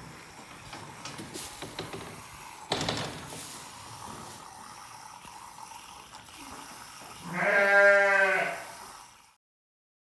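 A ewe bleats once, a single loud baa lasting over a second near the end. About three seconds in there is one sharp knock.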